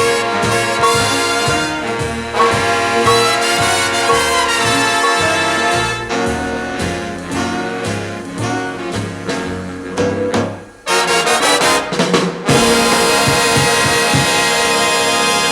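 Jazz or swing music with a brass section (trumpets, trombones, saxophone) over a steady beat, with a short break a little before the end and the music fading out at the close.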